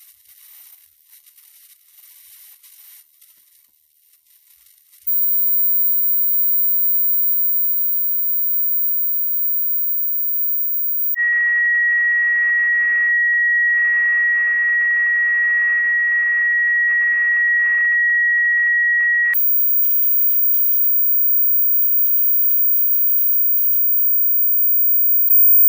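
Harsh, high hissing noise that turns loud about five seconds in. Midway it gives way for about eight seconds to a single steady high beep-like tone, then the hiss resumes.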